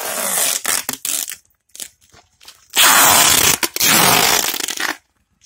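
Clear plastic stretch wrap pulled off its roll and wound around a delivery bag, crackling in two long pulls; the second, near the middle, is louder.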